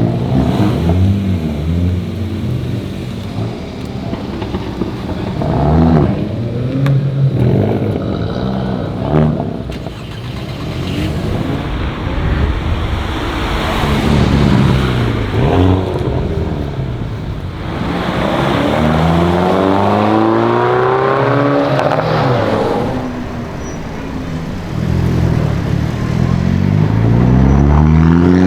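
Hyundai i30N turbocharged 2.0-litre four-cylinder engine revving and accelerating over and over, its pitch rising and falling. Two long rising pulls come near the middle and again at the end.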